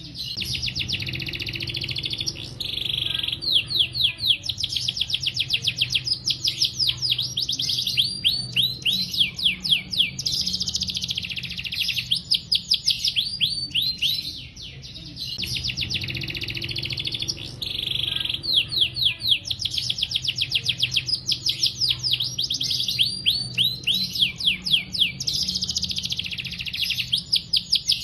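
Domestic canary singing a long, nearly unbroken song of fast rolling trills, each run made of rapid repeated down-sweeping notes, with short lulls about 3 and 15 seconds in.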